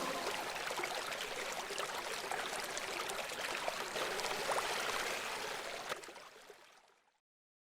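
Running water with many small splashes and trickles, fading out about six seconds in.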